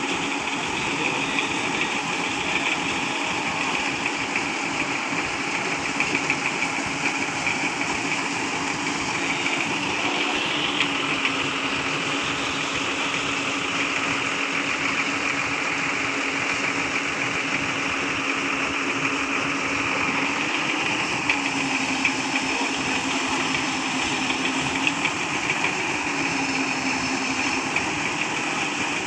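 Heavy truck engine idling steadily, its pitch dipping and recovering slightly a few times.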